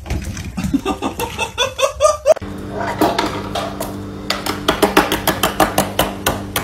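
Rainbow lorikeet hopping quickly across a wooden table, its feet tapping about five times a second, over a steady low hum. Before it, a short run of quick, pitched animal calls that cut off abruptly.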